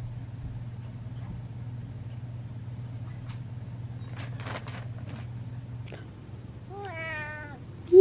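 Domestic cat meowing near the end, one drawn-out meow that drops in pitch, just before a louder one begins. Earlier, about four to five seconds in, the newspaper draped over the cat's back rustles briefly as it walks, over a steady low hum.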